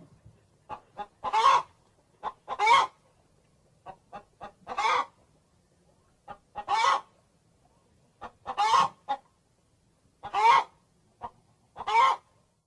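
Hen clucking: short clucks between louder, drawn-out squawks about every two seconds.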